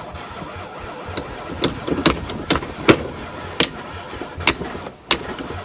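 Chrysler van's engine, being fed ether to get it to start, rumbling with irregular sharp pops, about eight of them spread unevenly through the stretch.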